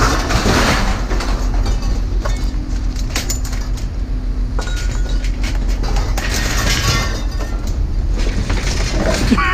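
A vehicle engine's low rumble with repeated metallic clanks and crashes of scrap metal being moved.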